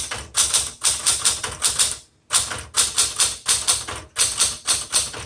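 1968 Smith Corona Super Sterling manual typewriter being typed on: quick runs of sharp key strikes, about five a second, with a short pause about two seconds in.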